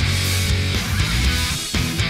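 Background rock music with electric guitar and a steady beat.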